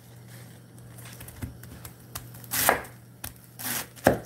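Large kitchen knife chopping a cabbage head on an end-grain wooden cutting board: several uneven chops, the blade striking the board, louder in the second half.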